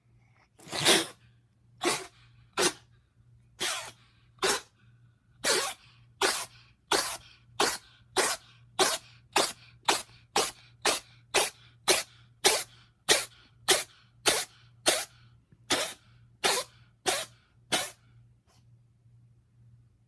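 A cat sneezing about thirty times in a row: short, sharp sneezes about a second apart at first, coming faster in the middle at about two a second, then stopping near the end.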